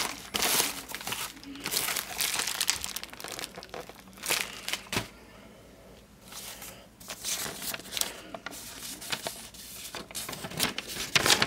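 Plastic mailer and bubble-wrap packaging crinkling and rustling as the contents are pulled out by hand and set down, in irregular bursts with a quieter pause about halfway through.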